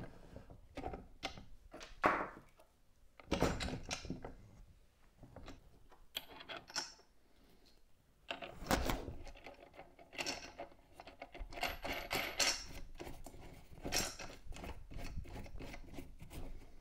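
Irregular clicks, clinks and clunks of metal and plastic parts and tools being handled as the upper housing of an Oregon 520-120 bench chain grinder is bolted to its motor unit, with a few louder knocks along the way.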